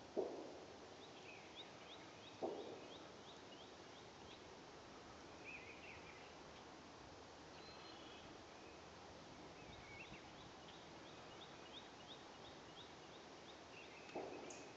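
A deer stepping through dry leaf litter: a few short crunches, about a second in, about two and a half seconds in and again near the end. A bird sings a quick run of high notes twice in the background.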